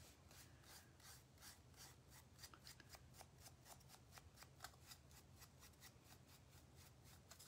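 Faint, quick strokes of a paintbrush rubbing paint onto a thin laser-cut wood piece, several soft scratchy strokes a second.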